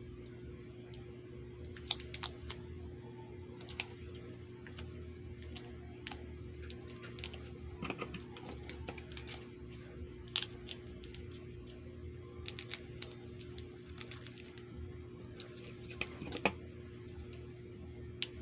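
Scattered small crinkles and clicks of candy wrappers being handled and opened, over a steady low electrical hum. The sharpest clicks come about 8, 10 and 16 seconds in.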